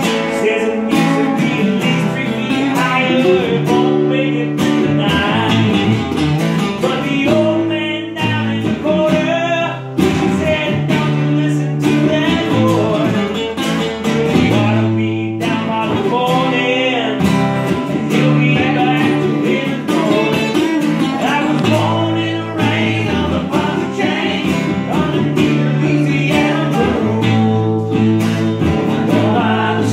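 Two acoustic guitars playing together in a country style.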